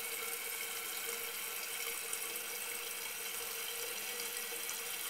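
Fluidmaster 400 fill valve in a toilet tank refilling it after a flush: a steady hiss of water running into the tank.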